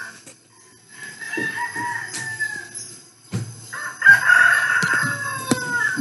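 Rooster crowing twice. The second crow, about four seconds in, is louder.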